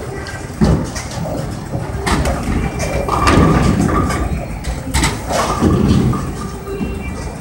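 Bowling alley noise: bowling balls rumbling down the lanes and pins crashing, with several sharp clattering impacts about half a second, two seconds and five seconds in.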